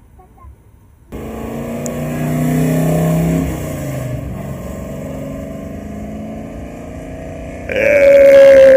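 A car accelerating away down the road: its engine note climbs, then drops and fades as it pulls off. Near the end a loud, steady, horn-like tone sounds for about a second and cuts off sharply.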